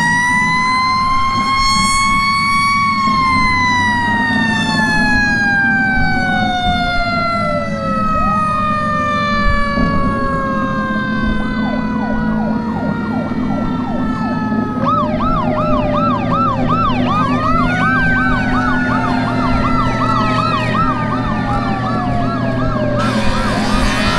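Fire engine's mechanical siren wound up, then slowly coasting down in pitch over some twenty seconds, with a truck engine running underneath. From about ten seconds in, other sirens join with rising and falling wails, and one warbles fast, about three times a second.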